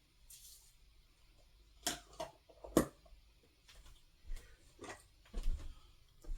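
Quiet handling noises while hair is slicked down with gel: a brief soft hiss near the start, then a scattering of short clicks and taps.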